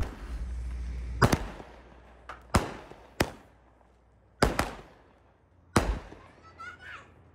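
Large consumer firework cake firing its aerial shots: about seven sharp bangs, irregularly spaced roughly every half second to second, each dying away quickly.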